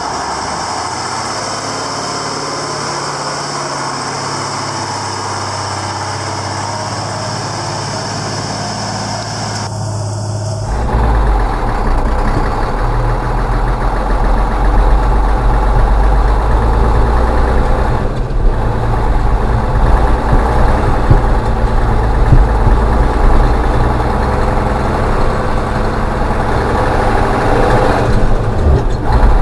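Praga V3S truck's air-cooled 7.4-litre inline-six diesel running as the truck drives, a steady, loud clatter. About ten seconds in, the sound switches to inside the cab, louder and deeper.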